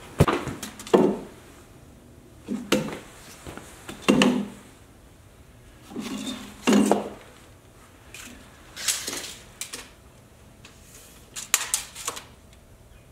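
Hand tools being handled against the wooden frame and stump: a spirit level laid across it and a steel tape measure pulled out. The result is a string of separate knocks and clatters every second or two, with sharper, brighter metallic rattles near the end.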